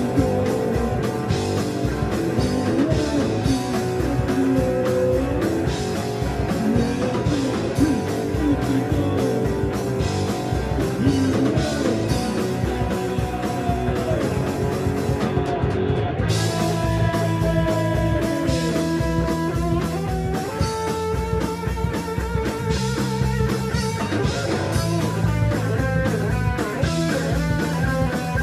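Live rock band playing an instrumental passage: two electric guitars over a Tama drum kit. About halfway through the playing changes, with the guitars holding longer ringing notes.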